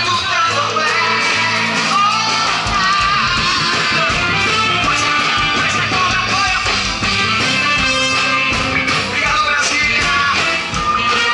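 Live band music played loud over a concert PA: a male singer with guitar backed by a drum section, in the style of música baiana. The sung melody runs on without a break.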